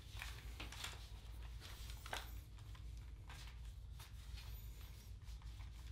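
Faint handling noise from a rifle and its one-inch webbing sling being slung over the head and shoulder: scattered soft rustles of strap and clothing with a few light clicks, over a steady low room hum.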